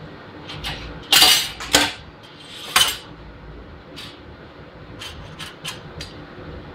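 Metal parts clattering and scraping, with the loudest clatter just over a second in and a few lighter clicks after, as the welded steel garage door hinges are handled.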